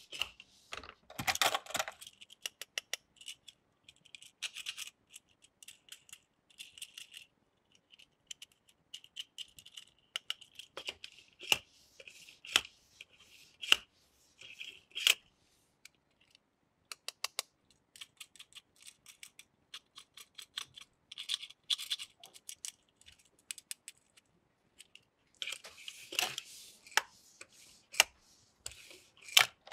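Small die-cast toy cars clicking and scraping against a plastic carrier case and tabletop as they are lifted out, set down and pushed along. Irregular bursts of sharp clicks with short rolling scrapes, and a couple of brief pauses.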